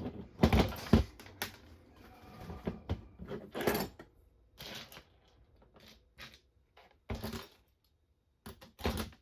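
Small kit parts and their packaging being handled and sorted through: irregular clicks, taps and short rustles, the sharpest about half a second and a second in, then sparser toward the end.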